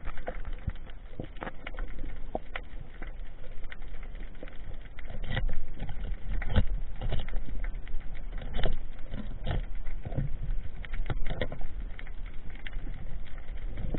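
Muffled underwater noise picked up by a diver's camera on a rocky seabed: a low rumble with many irregular sharp clicks and knocks, growing louder about a third of the way in.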